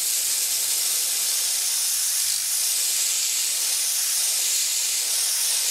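Compressed air hissing steadily from a Prevost blow gun aimed at the foam pad of a free-spinning dual-action polisher, spinning the pad to blow the polish residue out of it. The air cuts off sharply near the end.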